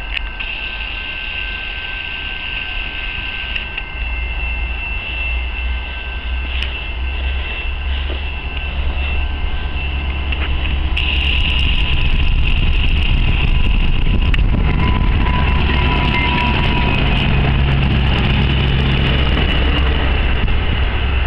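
Diesel commuter train locomotive approaching and drawing into the station, its low engine rumble growing louder until it passes close about halfway through. After that, sharp wheel-on-rail clicks and some wheel squeal come from the bilevel coaches rolling by.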